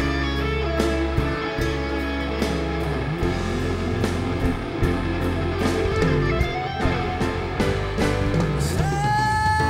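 Rock band music with guitar to the fore and regular sharp hits keeping the beat; about nine seconds in, a long held note comes in.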